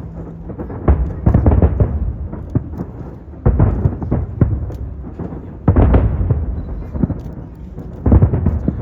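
Aerial fireworks bursting: deep booms every couple of seconds, each trailing off in rumble and crackle.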